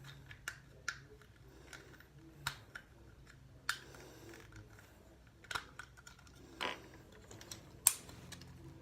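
Plastic joints and panels of a Transformers Studio Series Ratchet action figure clicking and snapping as they are moved during transformation: irregular sharp clicks, the loudest near the end, with a short scrape about two-thirds through.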